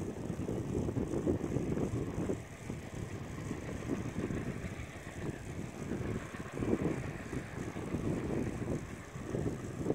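Wind buffeting the microphone in irregular low gusts that swell and fade every second or two.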